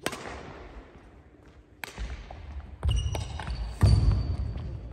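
Badminton rally on a wooden gym floor: sharp racket hits on the shuttlecock at the start and about two seconds in, then heavier footfalls thudding on the court with short squeaks of sneakers from about three seconds in.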